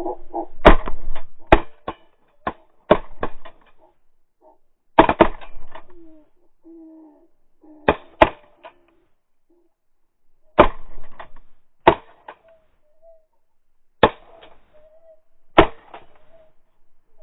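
Shotgun shots: a rapid cluster of sharp blasts, then pairs and single shots every two to three seconds, each with a short echoing tail.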